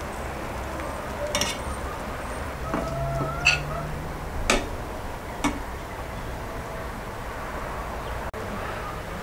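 A metal spatula clinking against a plate and an aluminium pot as butter is pushed onto cooked rice: four short, sharp clinks a second or so apart, over a steady background hiss.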